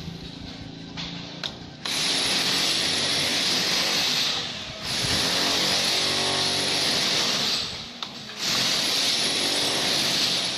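A power tool runs in three bursts of about three seconds each, with short pauses between, as a loud, harsh hiss.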